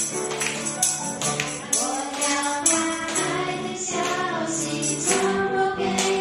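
Children singing a hymn with piano accompaniment, a tambourine struck and jingling in time.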